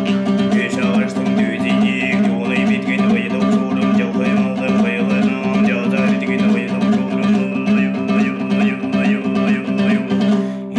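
Altai throat singing (kai): a steady low drone with a high overtone melody wavering above it, over a strummed plucked string instrument.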